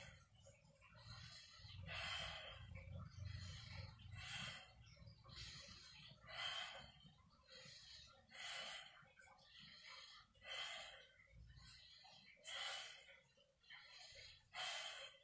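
A man breathing audibly and rhythmically in a chi kung breathing exercise: a strong hissing exhale about every two seconds, with softer inhales between.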